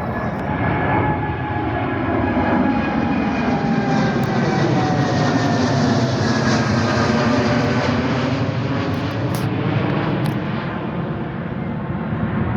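Jet airliner engines roaring as the aircraft passes, the engine tones sliding down in pitch as it goes by; the sound is loudest about halfway through.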